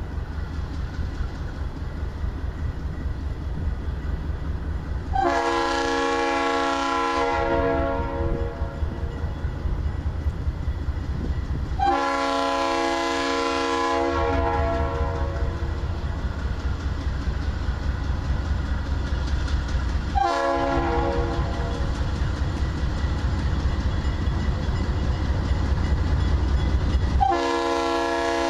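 Diesel freight locomotive's multi-note air horn sounding the grade-crossing signal: two long blasts, a short one, then a final long blast starting near the end. Under the horn is the steady low rumble of the locomotive engines, rising slightly as the train approaches; the pattern warns of the train's approach to a road crossing.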